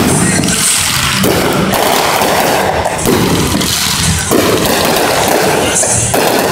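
Aerial fireworks going off in quick succession, a loud, continuous run of booms and crackles with no break.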